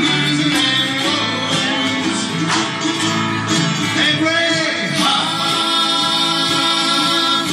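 Live band playing a song with guitars and drums, a voice singing over it.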